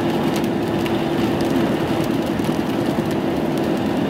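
Steady road noise inside a moving car, with an even low hum from the drive.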